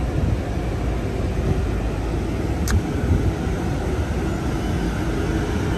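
Vintage PCC streetcar running close by with a low, steady rumble, and one short sharp click a little under three seconds in.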